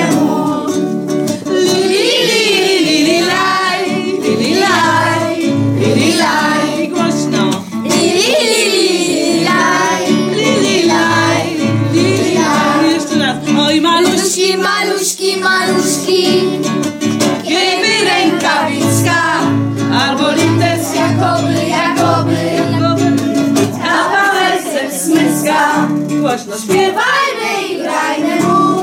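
A group of children and adults singing a Polish Christmas carol together, with instrumental accompaniment keeping a steady beat.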